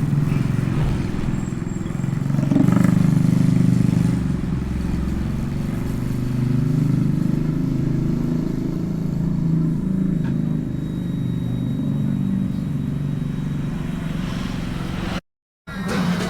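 Motorcycle engine running under way, heard from a microphone inside the rider's helmet: a steady low drone that swells for a second or so about three seconds in. The sound cuts out completely for about half a second near the end.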